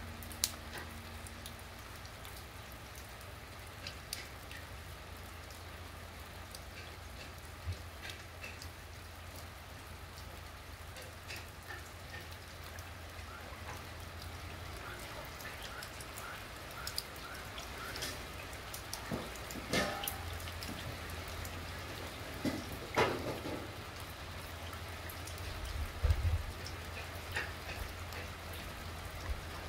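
Steady rain falling on wet ground, with louder individual drops landing close by now and then.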